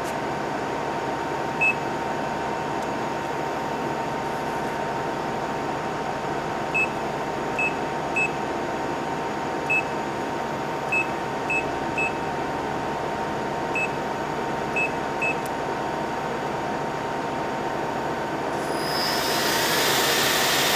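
Steady hum of a 1998 Hitachi Seiki HT23J CNC lathe standing ready, broken by about a dozen short beeps from its control panel. About 18 seconds in, the spindle starts spinning up toward its 4,000 rpm top speed, a whir that grows steadily louder.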